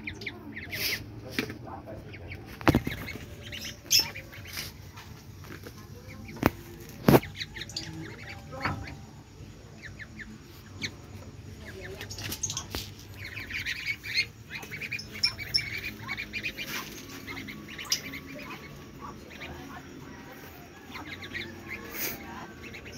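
Domestic ducklings peeping repeatedly in short, high calls while they feed. A few sharp clicks or knocks stand out in the first third.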